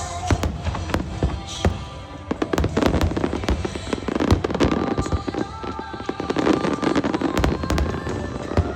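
Aerial fireworks bursting in quick succession: many sharp bangs and crackles, thickest through the middle stretch.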